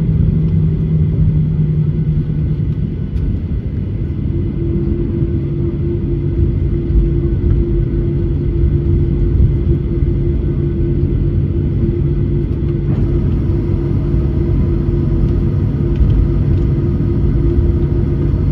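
Cabin noise of a Boeing 737 rolling on the ground after landing: a steady low rumble from the wheels and engines, with an engine hum underneath. A second, higher hum joins about four seconds in.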